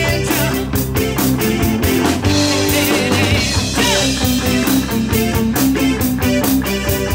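Live rock band playing: a drum kit keeping a steady beat under electric guitar and keyboard.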